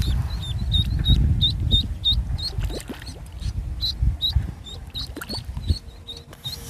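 A duckling peeping: short, high chirps repeated steadily, about three a second, over a low rumble.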